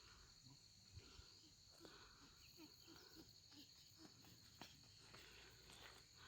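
Faint insect chorus: a steady, high-pitched buzz with a few soft ticks over it.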